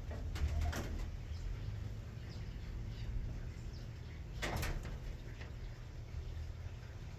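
Caged doves cooing, with two short rustles, one about half a second in and one about halfway through, over a steady low rumble.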